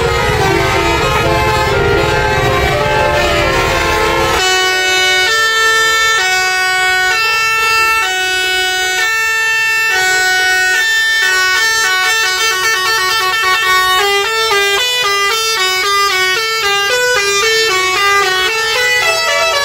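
A tour bus's basuri musical air horn playing a tune in held notes that step from pitch to pitch, over a low rumble of background noise for the first four seconds or so. After that the notes sound clean, and from about twelve seconds in they come shorter and quicker.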